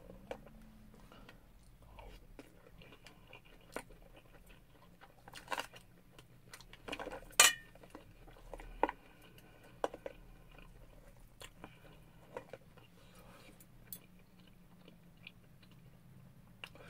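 A person chewing mouthfuls of fried rice, with a wooden spoon scraping and knocking in a stainless steel bowl: a few sharp knocks, the loudest about seven and a half seconds in.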